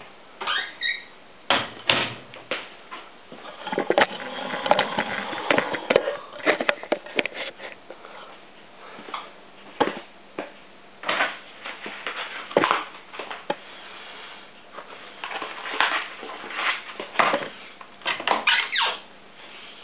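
Servis M2001W tumble dryer with clothes in the drum: irregular knocks, clicks and rustles over a faint steady hum. A cluster of clicks near the end comes from the door handle being worked.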